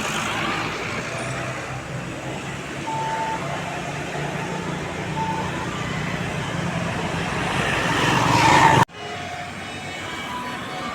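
Tour bus on the road, engine and road noise growing louder as it nears, then cut off abruptly. After the cut, quieter traffic noise with a few faint short tones.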